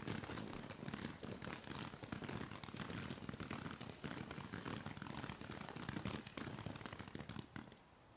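Low-noise ground fountain firework spraying sparks with a dense hiss and rapid crackle, cutting off abruptly about seven and a half seconds in.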